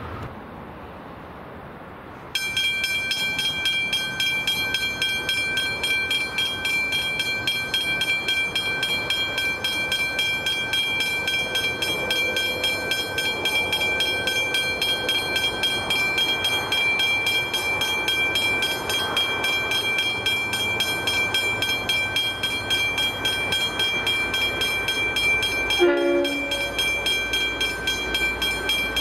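Level crossing warning bell, a Westinghouse hybrid bell, starting up about two seconds in and ringing rapidly and evenly as the crossing activates for an approaching train. Near the end there is one short horn blast, and a low rumble builds after it.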